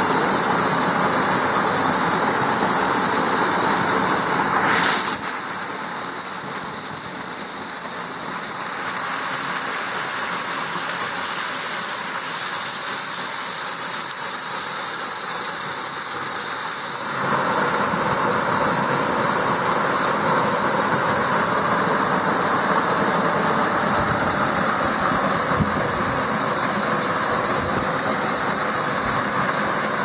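A waterfall of about ten metres plunging into a pool: a steady, loud rushing hiss of falling water. Its deeper part fades for about twelve seconds in the middle, then comes back.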